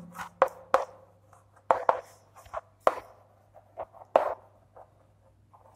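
Chalk writing on a blackboard: a string of short, irregular taps and scratches as the letters are written.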